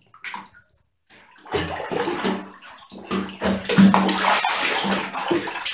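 A ferret paddling and splashing in shallow bathwater in a bathtub, held by a person's hands. After a short lull the splashing starts about a second and a half in and keeps going, loudest a little past the middle.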